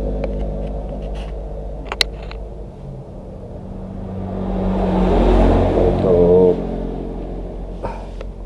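Motor vehicle engines going by: a low engine hum fades away, then another vehicle approaches, passes about five to six seconds in and fades again, with a sharp click about two seconds in.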